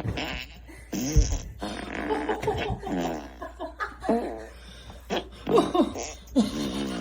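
Hearty laughter over a run of fart sound effects played by an Alexa smart speaker, with loud peaks of laughing about two-thirds of the way through.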